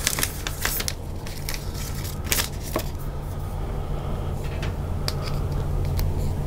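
Scattered light clicks, taps and rustles of a phone box's cardboard packaging being opened and handled, over a steady low hum.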